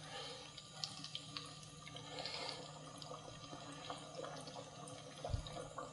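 Hand pies deep-frying in hot oil: a faint steady sizzle with small crackles, and a few light clicks.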